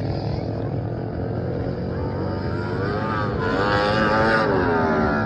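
Racing lawnmower engines running at speed, with one engine getting louder about halfway through and swinging up and down in pitch, loudest about four seconds in.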